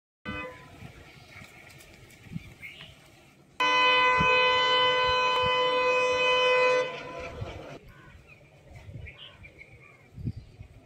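WDM3D diesel locomotive's air horn sounding one steady blast of about three seconds, starting abruptly a few seconds in and stopping near the middle, with a short fade.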